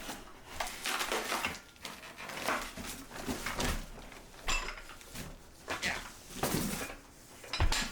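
Cardboard and packing rustling and scraping as a heavy steel floor jack is wrestled out of its box, in irregular bursts, with a heavy thump near the end.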